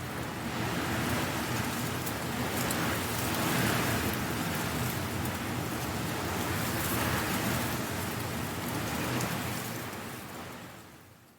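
Strong wind blowing dry leaves about, a dense crackling rustle that swells and eases, then fades out near the end.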